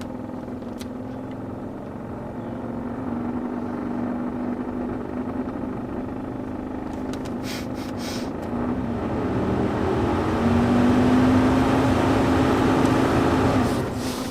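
1981 Cadillac Sedan Deville's heater blower motor running noisy, its hum stepping up in pitch and loudness twice as the fan speed is raised, then stopping abruptly near the end.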